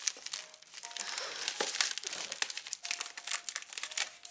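Plastic Priority Mail mailer being handled and pulled open, crinkling and rustling with many sharp crackles.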